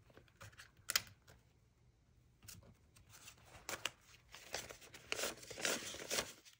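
Paper banknotes rustling and crinkling as a stack of cash is handled and fanned out, with a single sharp click about a second in; the rustling grows busier and louder in the second half.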